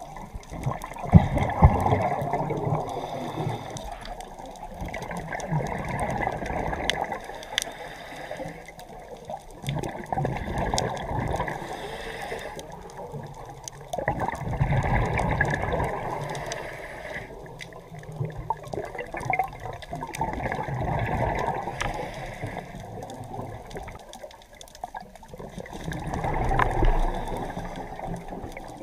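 Underwater scuba breathing: a diver's exhaled regulator bubbles gurgling past the camera housing in swells every few seconds, with scattered sharp clicks.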